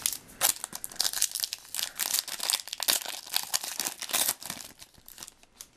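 Foil wrapper of a 2011 Panini Contenders football card pack crinkling and crackling as it is handled and opened. The crackles thin out near the end.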